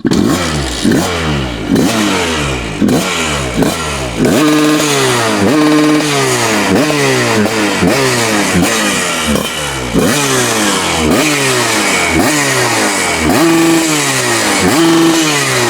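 Suzuki TS125 two-stroke single-cylinder motorcycle engine revved over and over in quick throttle blips, the pitch rising and falling one to two times a second, with a few short holds at steady revs.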